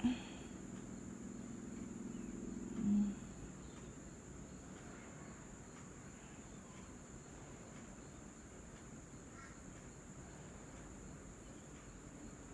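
Steady high-pitched insect chirring, with two short low thumps about three seconds apart near the start and a faint low hum that dies away soon after the second thump.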